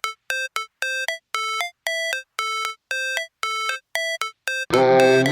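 Background music: a repeating electronic note pattern, short bell-like synth tones about three a second, each ending with a small step up in pitch. Near the end a fuller beat with bass comes in.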